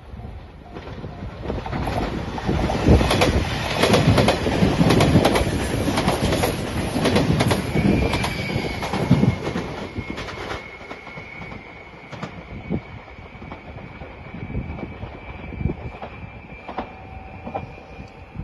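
JR Shikoku Shiokaze limited express, a five-car electric train in white Anpanman livery, passing over a level crossing. The wheels clack rapidly over the rail joints and are loudest for several seconds in the first half, then the sound fades as the train moves away.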